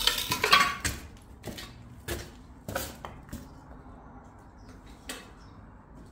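Footsteps scuffing and crunching on grit and rubble on concrete stairs: a loud scraping crunch in the first second, then single steps at irregular intervals until about five seconds in.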